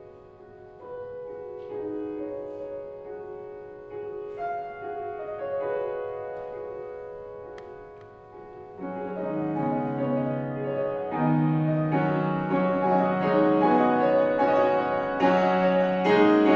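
Kawai grand piano played solo: soft, held notes in the middle register, then about halfway through a fuller passage with lower notes comes in and grows louder.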